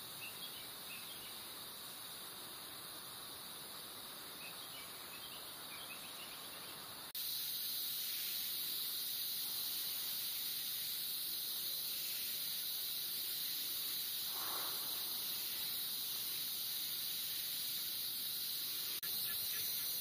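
Tropical rainforest insect chorus, a steady high-pitched drone that steps up louder at a cut about seven seconds in and again near the end. A few faint short chirps come in the first seconds, and one brief call about fourteen seconds in.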